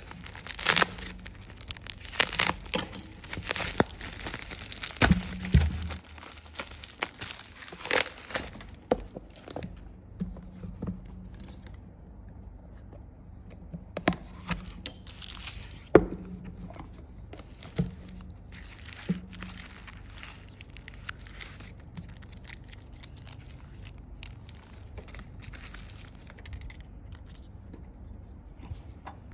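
Plastic courier mailer being torn open and crumpled: a dense run of sharp crinkles and rips over the first nine seconds. After that comes sparser, quieter crinkling of plastic packaging and bubble wrap, with a few sharp clicks as the replacement phone screen is unwrapped and handled.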